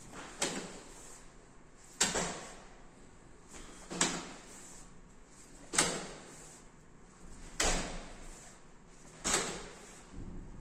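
Six hand slaps on the lit push buttons of a reaction-time game wall, about one every two seconds, each a sharp knock with a short fading tail; each slap is a hit that scores a point.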